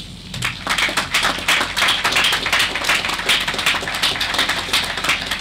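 Audience applauding, a dense patter of many hands clapping that swells about half a second in and thins out near the end.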